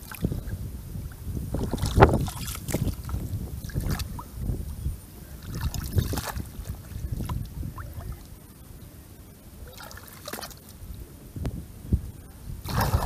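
Shallow muddy water splashing and sloshing as hands scoop up and pack down clods of mud and grass, with sharper wet slaps about two, four and six seconds in and again near the end. The sound goes quieter for a couple of seconds in the middle.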